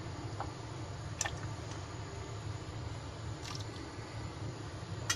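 Steady low rumble of a gas stove burner heating a steel pot of water as it comes toward the boil, with a few soft ticks scattered through.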